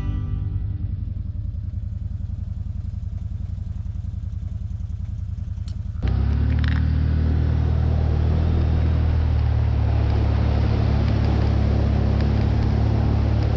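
CFMOTO side-by-side's engine running low and steady, then after an abrupt jump about six seconds in, louder engine noise mixed with the wash of water spraying off the wheels as it drives through a flooded trail.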